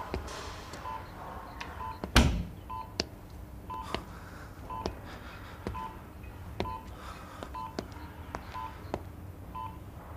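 Patient heart monitor beeping steadily, a short high beep about once every three-quarters of a second. There is one loud thud about two seconds in.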